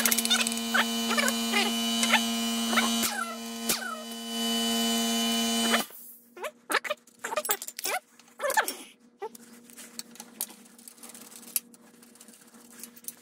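A steady electrical hum that cuts off suddenly about six seconds in, leaving only a faint trace. Many short high chirps, rising and falling in pitch, are scattered throughout.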